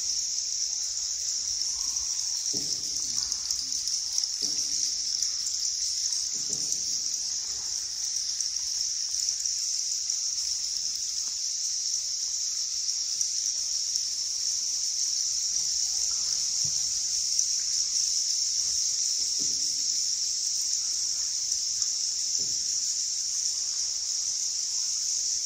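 Water sloshing and trickling softly around a tour boat on the underground river, with faint paddle-like strokes every two to three seconds, under a steady high-pitched hiss.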